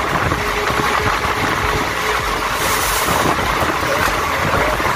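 Passenger train in motion, heard from its open doorway: a steady rumble of the running train mixed with rushing wind on the microphone. A faint steady hum sounds through the first half.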